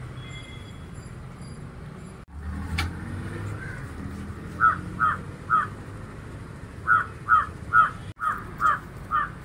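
Crow cawing: short harsh calls, three in quick succession about halfway through and six more near the end, over steady background noise.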